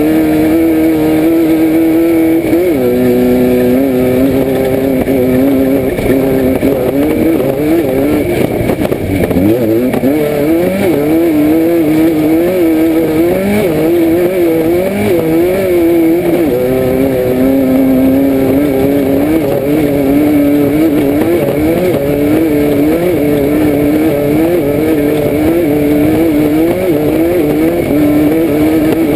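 Class 5/1600 Baja Bug's air-cooled VW flat-four engine, heard from inside the car at race pace. The revs rise and fall about once a second as the throttle is worked, with one drop in pitch a few seconds in, over a steady rattling roar of the car.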